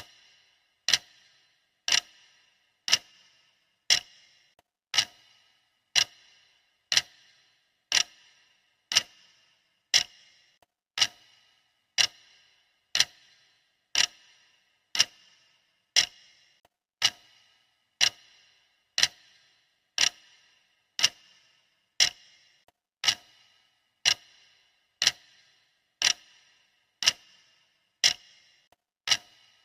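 Clock ticking at one sharp, even tick a second, each tick with a short bright ring after it.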